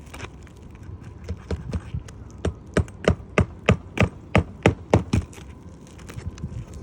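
A run of sharp hand-tool strikes on roof shingles, about three a second, starting softly, growing louder through the middle and stopping about five seconds in, during a shingle repair.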